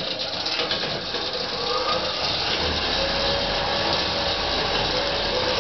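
Homemade jaw crusher running, its electric motor driving the jaw mechanism through V-belts and pulleys: a steady mechanical running sound with a rattling clatter, and a faint steady whine joining in a couple of seconds in.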